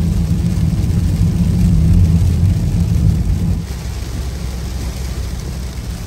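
Car interior noise while driving in heavy rain: a loud low rumble of the road and engine with a hiss of rain on the car, easing a little after about three and a half seconds.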